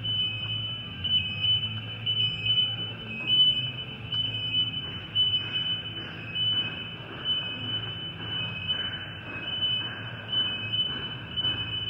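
A high-pitched electronic alarm tone that beeps on and off in uneven pulses, over a steady low hum. Faint regular footsteps come in from about halfway.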